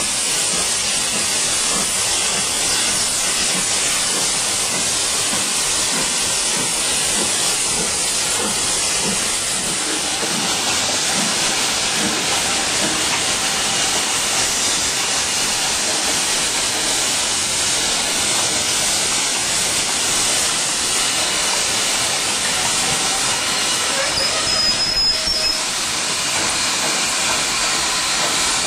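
Two steam locomotives, BR Standard Class 4 2-6-0 No. 76079 and LMS Stanier Black Five 4-6-0 No. 45407, moving slowly past at close range with a steady, loud hiss of steam escaping from the cylinders. A short high squeal comes near the end.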